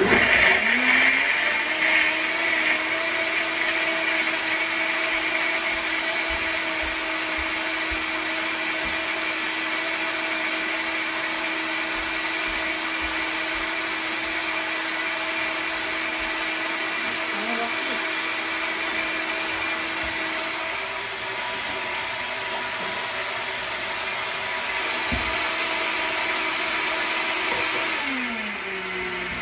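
Personal bullet-style blender running at full speed, blending a shake of almond milk, frozen banana, ice and protein powder. It starts abruptly with a steady motor whine, and its pitch drops about a second before the end.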